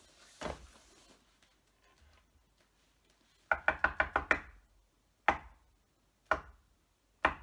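Knocking on a hard surface in the pattern of the French theatre 'trois coups': a quick run of about seven knocks, then three single knocks about a second apart, signalling that the show is about to begin.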